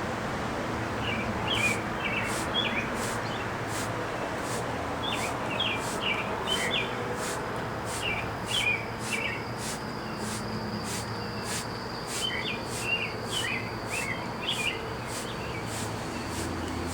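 Birds chirping in short clusters of quick notes, over steady outdoor background noise, with a faint high ticking about twice a second.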